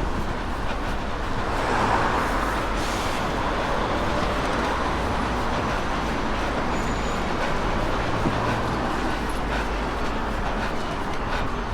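Street traffic passing, with one vehicle swelling louder about two seconds in, over a low rumble of wind on the camera's microphone.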